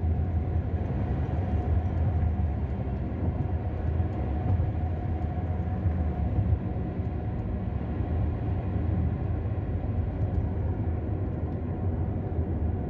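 Steady low rumble of a vehicle on the move, its engine and road noise running evenly.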